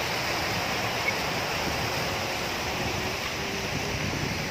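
Water from an ornamental fountain's jets splashing into its basin: a steady, even rushing.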